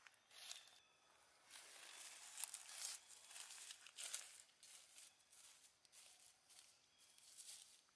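Faint rustling and crackling of dry leaf litter, in irregular bursts with a louder patch about two and a half seconds in and another near four seconds.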